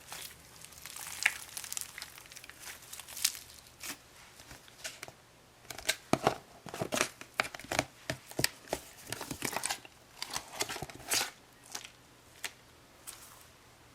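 Old, dried-up crunchy slime being squeezed and pulled apart by hand, giving irregular sharp crackles and tearing sounds that come thickest in the middle and thin out near the end.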